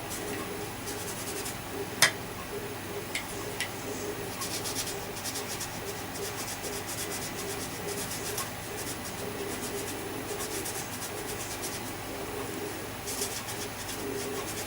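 Hand rubbing and scraping on parts of a 1973 Hoover Junior upright vacuum cleaner being cleaned and dismantled, in runs of quick strokes, with a sharp click about two seconds in and two lighter clicks soon after.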